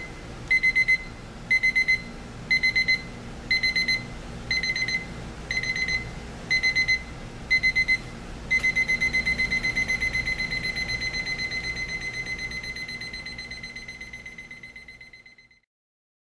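Advance miniature battery digital alarm clock's ascending alarm beeping at a high pitch, first in short bursts about once a second. From about eight seconds in it beeps continuously, then fades away and stops near the end.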